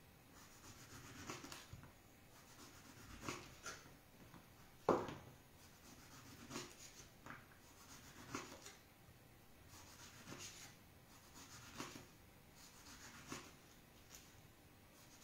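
Small knife cutting the peel off an orange on a wooden cutting board: faint rubbing and scraping, with scattered light knocks of the blade on the board, the sharpest about five seconds in.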